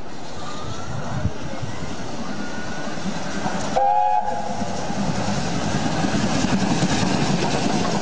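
Steam locomotive approaching at speed and drawing alongside, its rushing running noise slowly growing louder. About four seconds in, its whistle gives one short blast of a few steady tones.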